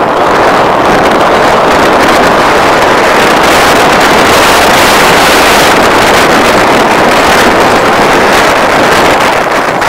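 Loud, steady rushing noise of wind buffeting the microphone of a camera moving along at speed.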